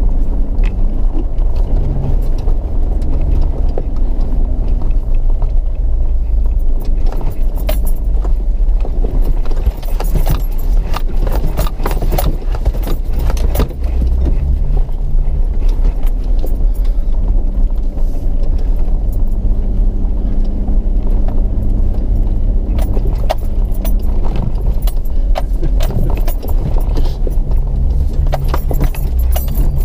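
Off-road vehicle driving on a rough dirt and gravel track: a steady low engine rumble with frequent rattles and knocks as it bumps over the uneven ground, busiest in the middle and near the end.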